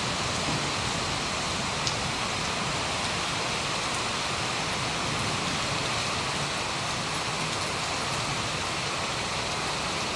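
Heavy rain falling steadily in a windstorm, an even, unbroken rushing noise.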